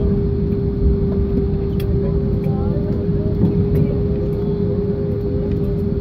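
Cabin noise of a jet airliner rolling out on the runway just after touchdown, spoilers raised: a steady low rumble with a steady hum running through it.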